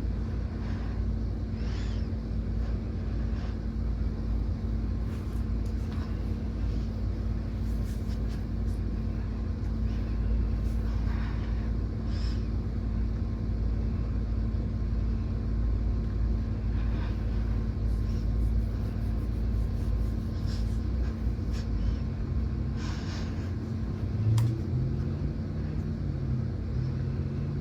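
Mini ceiling fan running steadily on its highest of four speeds: a constant low rumble of moving air with a steady motor hum and faint scattered ticks. Near the end there is a brief louder bump and a short wavering low tone.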